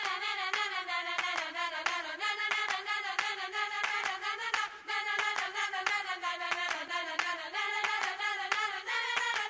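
A voice singing one long, mostly level note over steady rhythmic hand clapping, about four claps a second.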